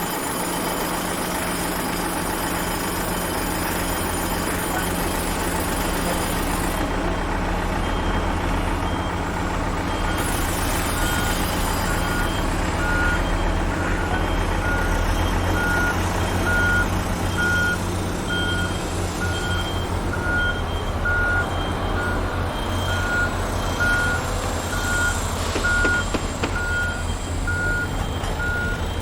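A heavy vehicle's diesel engine running with a low, pulsing rumble. After about ten seconds its reversing alarm starts beeping steadily, a little faster than once a second.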